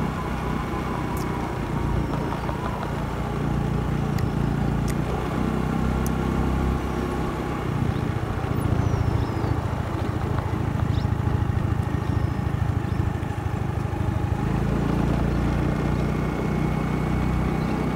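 Motorbike engine running steadily while riding along a paved road, with road and wind noise on the onboard microphone. The engine drone grows deeper and louder for several seconds in the middle.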